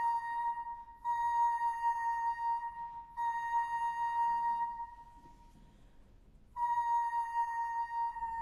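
A flute playing long, held high notes. The note is re-attacked about a second in and again about three seconds in, fades out near the middle, and after a pause of about a second and a half near silence a new long note begins.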